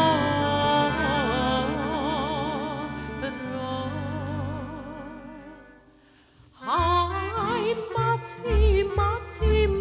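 Vojvodina folk medley on accordion, bugarija tambura and bass: one tune ends on a long held chord with vibrato that fades out about six seconds in. After a brief near-silent gap, the next tune starts with an upward-sliding melody over a steady bass-and-chord beat.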